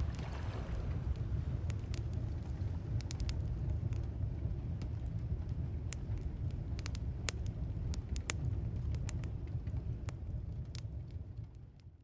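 Campfire crackling, with irregular sharp pops and snaps over a steady low rumble, fading out over the last couple of seconds.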